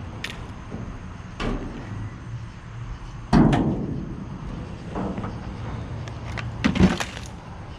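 Junk being shifted and knocked about while rummaging in a dumpster: a few separate knocks and clatters, the loudest about three and a half seconds in and another cluster near the end.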